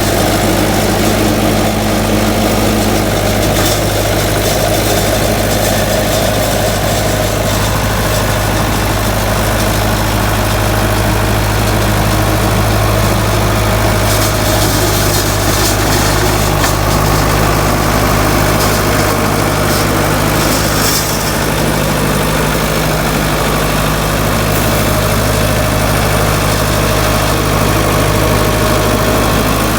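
Engine of a farm machine running steadily and loud, with a slight change in its note about halfway through.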